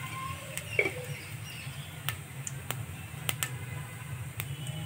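Cumin, asafoetida and crushed ajwain seeds frying in hot oil in a steel kadhai, giving scattered sharp pops and crackles at irregular intervals over a low steady hum.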